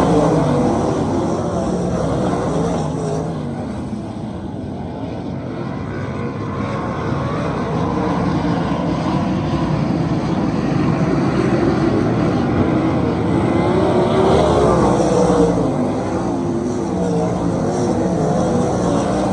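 A field of 410 sprint cars racing on a dirt oval, their 410-cubic-inch V8 engines overlapping and rising and falling in pitch as the cars go by and recede. The sound eases for a few seconds as the pack runs the far side, then builds again.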